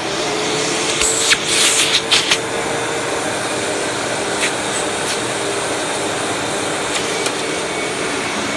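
Hoover WindTunnel bagless twin chamber vacuum cleaner running steadily, with a held tone over its airflow noise and a few brief knocks about one to two and a half seconds in.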